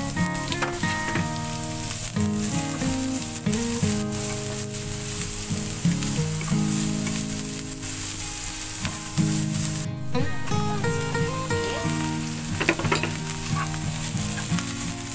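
Garlic and shredded carrot sizzling in hot oil in a frying pan as they are stirred and tossed with a spatula; shredded cabbage goes into the pan near the end.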